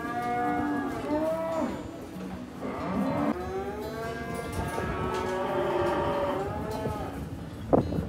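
Penned livestock calling: a run of long, drawn-out calls that overlap one another, with a sharp knock near the end.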